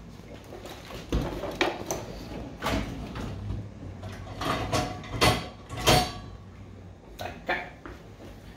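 Kitchen utensils clattering and a kitchen drawer knocking while utensils are rummaged through: a string of separate knocks and rattles, loudest about five to six seconds in.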